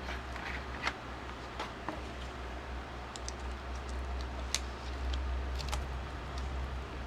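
Scattered light clicks and taps of small objects being handled on a work surface, over a steady low hum.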